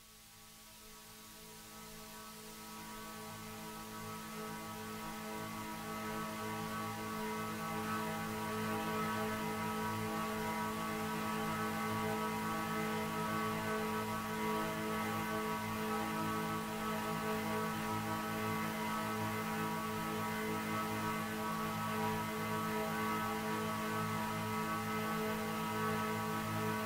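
Sustained synthesizer drone: a chord of steady held tones with a faint hiss, fading in slowly over the first several seconds and then holding level.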